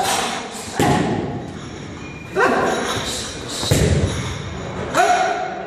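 Kickboxing pad work: about five strikes thud into the coach's pads, roughly one every second, most of them with a short shout at the moment of impact. The sound rings in a large room.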